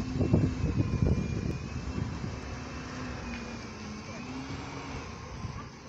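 Double-decker bus pulling away and driving off, its engine and transmission hum dipping and rising in pitch. The sound is loudest with a heavy low rumble in the first second or so, then fades steadily as the bus moves away.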